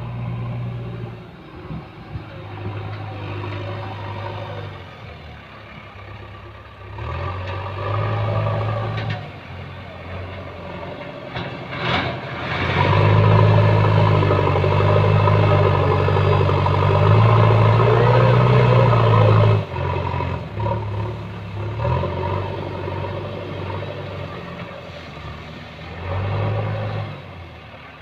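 JCB backhoe loader's diesel engine working under load. The revs rise sharply after a single clank about twelve seconds in and stay at their loudest for about seven seconds as the front bucket pushes soil. The engine then drops back suddenly to a lower, uneven working speed.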